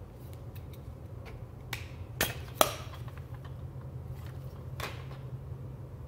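Sharp hard-plastic clicks and knocks from CEE form industrial connectors being handled: about four distinct clicks a second or so apart, the loudest about two and a half seconds in, over a steady low hum.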